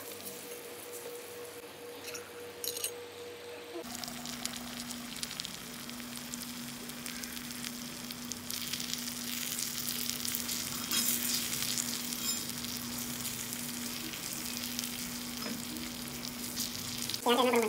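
Onions, tomatoes and spices frying in oil in a miniature metal kadai, sizzling and crackling steadily as a small slotted metal spatula stirs them.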